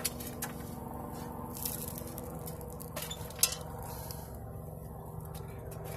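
Metal charcoal chimney starter being picked up and set down on a steel tray, with light metal clinks and scrapes and one sharper knock about three and a half seconds in.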